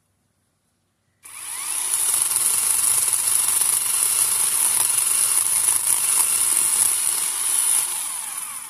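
Chainsaw starting up about a second in, running steadily at high speed for about seven seconds, then winding down near the end.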